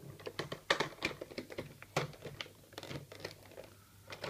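Irregular clicks and taps of hard clear plastic toy parts being handled and pressed together, as the tabs of the see-through Masterpiece Optimus Prime trailer are fitted into place.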